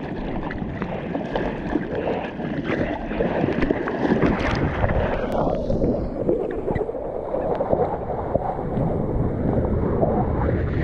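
Seawater splashing and rushing close around the camera as a surfer paddles and rides a small wave, with many small splashes. About halfway through the sound turns duller and muffled.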